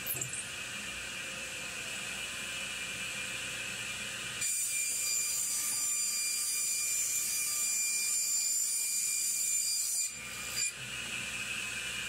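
A 1959 resaw running, ripping a cedar board into narrower boards, with a steady high whine. From about four to ten seconds in the sound is louder and brighter.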